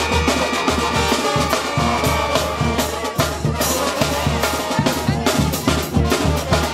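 Brass band of trombones, trumpets and clarinets playing a tune over a steady drum beat.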